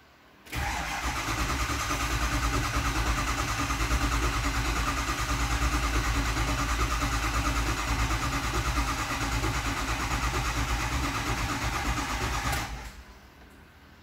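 2005 Ford F-250's 6.0L Powerstroke V8 diesel cranking on the starter with an even rapid pulsing for about twelve seconds, then stopping without the engine firing. It is not starting because injection control pressure is not building: the scan tool reads 0 psi against about 1,170 psi desired.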